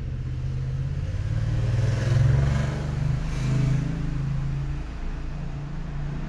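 A motor vehicle engine running with a low hum, growing louder to a peak about two seconds in and then fading.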